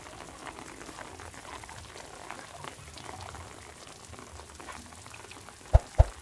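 Light rain pattering in scattered drops, with two dull thumps close together near the end.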